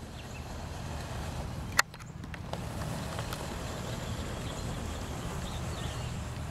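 Steady low rumble of outdoor background noise picked up by the camera's microphone, with one sharp click about two seconds in.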